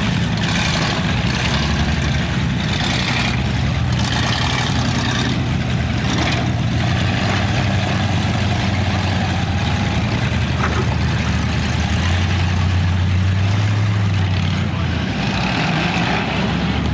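Derby car engines running with a steady low drone that grows louder about twelve seconds in and eases off near the end.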